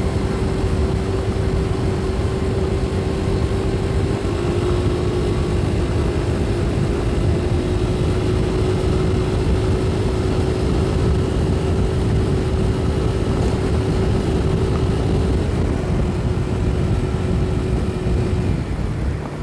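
Motorcycle riding at a steady speed, heard through a helmet microphone: wind rush and engine noise with a steady drone that holds one pitch, dropping away near the end as the bike slows.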